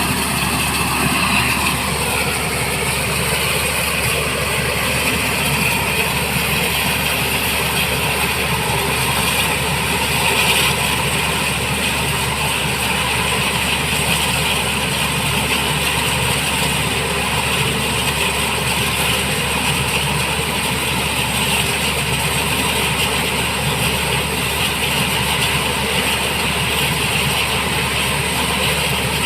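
Black Hawk helicopter running steadily, a continuous engine noise with a steady high whine on top.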